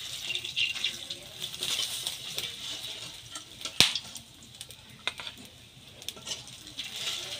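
Battered taro pieces sizzling in hot oil in an iron wok, with a metal spatula scraping and clicking against the pan. There is one sharp clink a little under four seconds in as fried pieces are lifted out into a steel bowl, and the sizzle fades after that.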